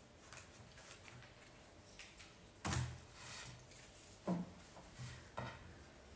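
Handling noise from arranging flowers in a wicker basket on a wooden turntable: a scatter of light knocks and rustles, with two louder knocks a little past the middle.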